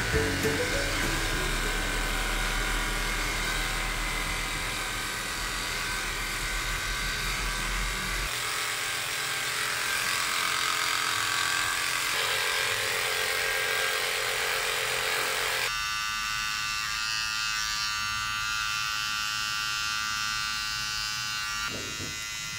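Cordless pet hair clipper running with a steady electric buzz as it trims a Maltipoo's coat, its tone changing abruptly twice.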